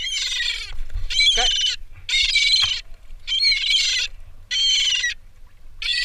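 A hooked gull squawking in distress while it is handled and unhooked: a string of harsh, high calls, about one a second.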